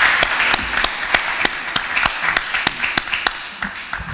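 Applause from a small audience and panel, many hands clapping, thinning out and dying away near the end.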